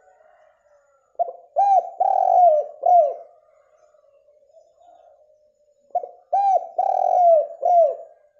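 Spotted dove (derkuku) cooing: two phrases of about four low coos each, a few seconds apart, with fainter cooing between them.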